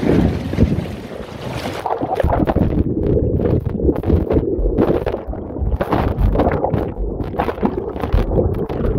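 Churning river water in a rapid, heard from inside the water after a kayak capsize. About two seconds in the sound turns muffled and gurgling as the microphone goes under, broken by brief splashing flares as it nears or breaks the surface.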